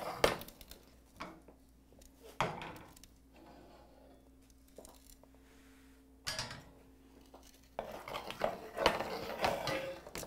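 Metal spatula knocking and scraping against a foil-lined metal sheet pan while prying up a whole baked fish: a few separate clanks, then a busier run of scraping and clatter near the end.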